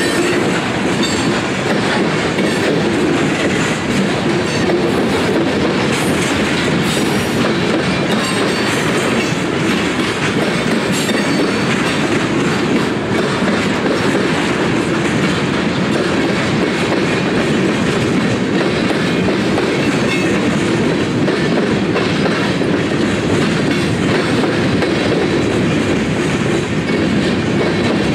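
Freight train of tank cars and covered hoppers rolling past close by: a steady rumble and clatter of steel wheels on rail.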